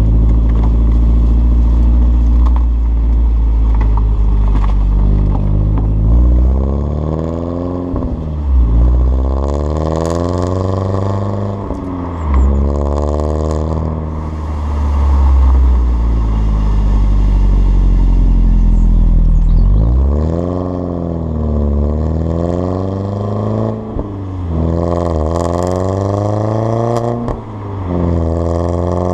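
Alfa Romeo Brera S 2.2's four-cylinder engine heard at the tailpipes through a stainless steel cat-back exhaust with the centre silencer removed, the car under way. The note climbs in pitch again and again as the car accelerates through the gears, falling back at each gear change, with a steadier low stretch in the middle.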